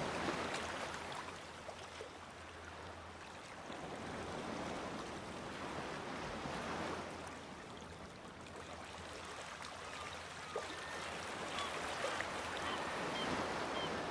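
Sea waves washing against rocks, a steady rushing that swells and eases every few seconds.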